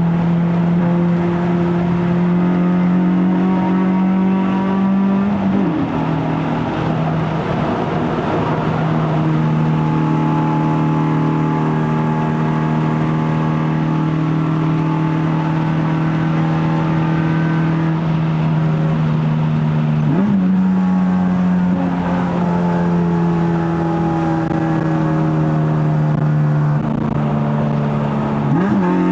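Honda Civic FD2's swapped K24A 2.4-litre four-cylinder engine, with a straight-pipe stainless exhaust, running steadily under way. The engine note briefly breaks and settles at a new pitch about three times.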